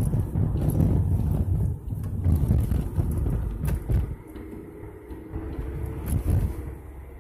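Road and engine noise heard inside a moving car's cabin: a low rumble that eases about four seconds in, with a couple of faint clicks.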